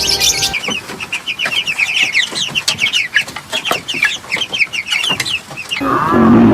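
Chickens clucking and calling in a rapid run of short, high, downward-sliding notes. Near the end a louder, lower call with an arching pitch cuts in.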